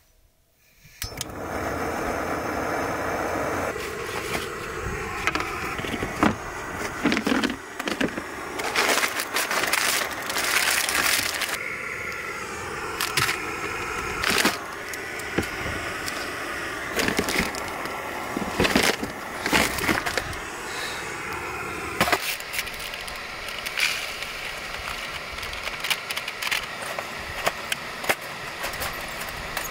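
Jetboil canister gas stove burner lit and hissing steadily while it heats water, with crinkling packaging and clattering handling noises over it.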